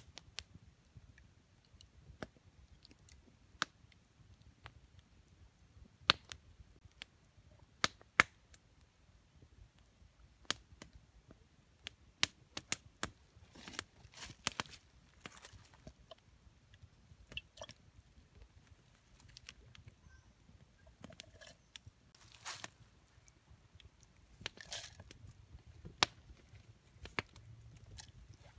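Small wood fire crackling, with sharp pops every few seconds over a low rumble. A few longer scratchy sounds come in the second half.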